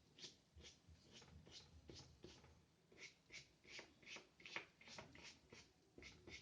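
Faint, quick, short strokes of a paintbrush on paper, about two to three a second, as gouache is worked on in small fur-like dabs.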